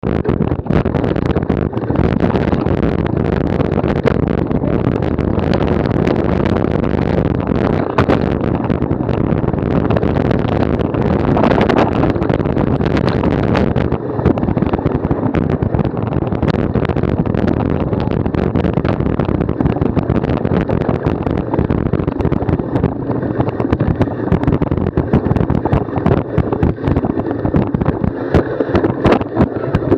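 Wind buffeting the microphone of a bike-mounted camera, with the bicycle rattling and knocking continuously as it rides over a rough off-road track.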